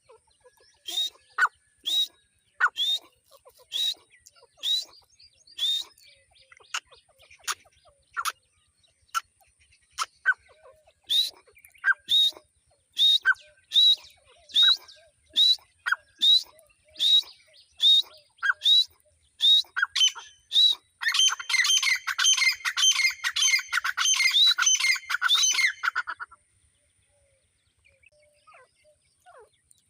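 Grey francolin calling: a shrill, sharp call repeated roughly once a second, breaking about two-thirds of the way in into a fast, overlapping run of calls that lasts about five seconds and then stops.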